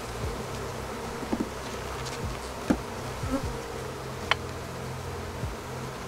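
Honeybees buzzing steadily around an open hive, with a few short, sharp clicks as a hive tool and gloved hands work the wooden frames loose.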